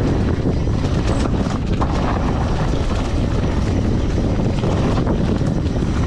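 Mountain bike rolling down a dirt trail: a steady rush of wind on the camera microphone over the tyres on packed dirt and dry leaves.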